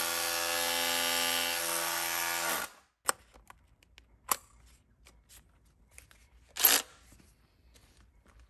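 Bosch UniversalHammer 18V cordless SDS-plus rotary hammer running with a chisel bit against the ground, then stopping suddenly after about two and a half seconds. A few light clicks and one short scrape follow as the tool and bit are handled.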